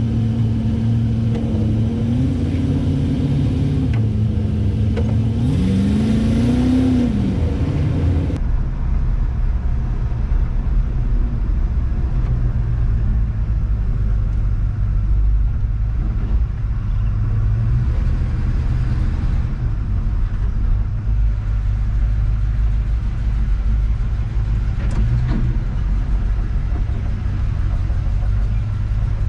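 1970 Chevrolet C10 pickup's engine running on the move, with a short rev that rises and falls about six seconds in, then settling into a steady low engine and road rumble.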